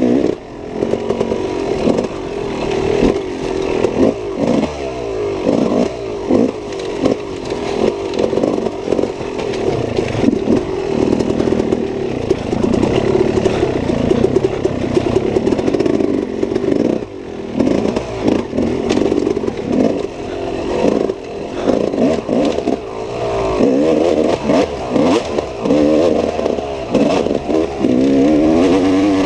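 Dirt bike engine being ridden hard, revving up and down continually, with clattering and scraping over rough ground.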